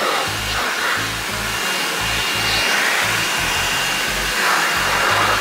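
Leaf blower blasting a steady rush of air into an open mouth, the air flapping the lips and cheeks.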